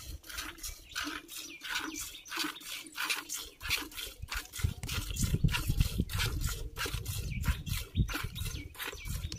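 Milk squirting from a cow's teats into a steel pot during hand milking: a rhythmic hiss of about three or four squirts a second. A low rumble joins in about halfway through.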